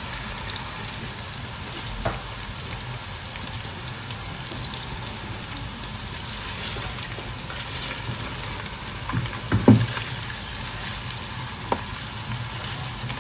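Bratwurst pieces and sliced onions sizzling steadily in butter in a stainless-steel pot, with a few short knocks and scrapes of a silicone spatula stirring, the loudest near the ten-second mark.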